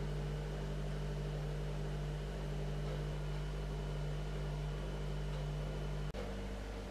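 Steady low machine hum with a faint hiss, made of several constant tones; it drops out for an instant about six seconds in and comes back with a slightly different mix of tones.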